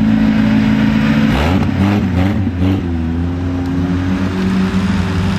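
Jeep engine running hard at high revs while the Jeep is stuck in a mud pit. About a second in, its note wavers up and down as the throttle is worked, then steadies again.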